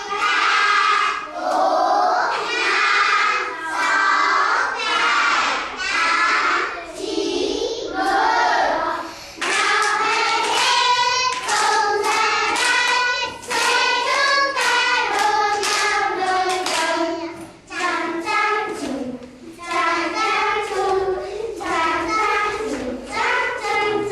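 A class of young children counting aloud together in a sing-song unison chant, one number a beat. The chant is slower at first and quickens from about ten seconds in.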